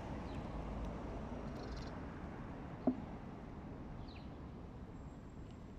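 Steady low outdoor rumble with a few faint high chirps, broken about three seconds in by one brief, low-pitched call.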